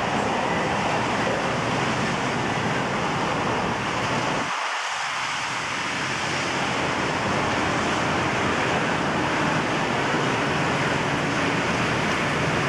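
Steady rushing noise of wind outdoors, with a brief dip in the low rumble about four and a half seconds in.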